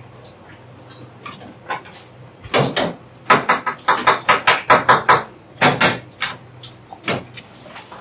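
Kitchen work knocks: a few scattered sharp knocks, then a quick burst of strikes at about five or six a second for a couple of seconds, then a few more knocks near the end.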